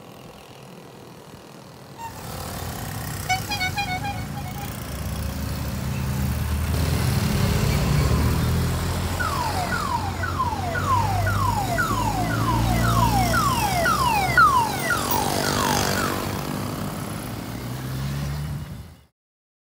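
VéloSoleX mopeds' small two-stroke engines running as they ride past. A few seconds in, a rapid beeping horn sounds, and in the middle a run of about a dozen falling siren-like tones follows, about two a second. The sound cuts off suddenly near the end.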